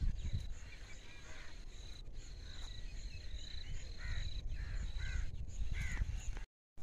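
Crows cawing outdoors, a run of four caws about a second apart near the end, over a low wind rumble and a steady high-pitched tone.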